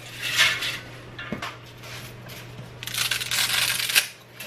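A bundle of dry spaghetti being snapped in half by hand over a stainless steel pot, crackling as the strands break: a short burst near the start and a longer one about three seconds in.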